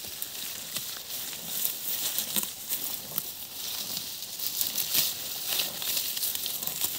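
Rustling and crackling of dry vegetation, with many small sharp clicks scattered through it.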